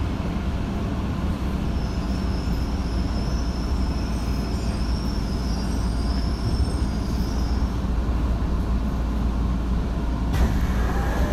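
Steady rumble and hum of a Tokyo Metro Marunouchi Line 2000 series subway train, with a faint high whine for a few seconds in the middle and a sharp click near the end.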